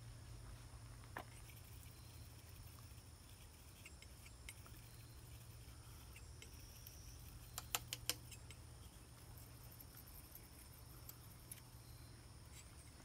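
Near silence over a low steady hum, broken by faint ticks and a quick cluster of three sharp clicks about eight seconds in: a steel palette knife working oil paint on a painting board.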